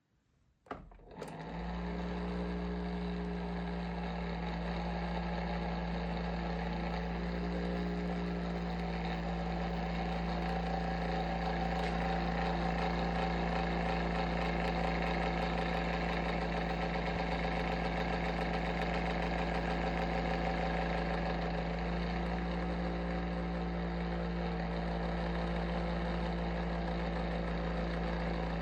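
Bionaire ceramic tower heater running, its fan motor giving a steady hum with a low drone underneath. It starts up about a second in, and the owner takes the noise for abnormal.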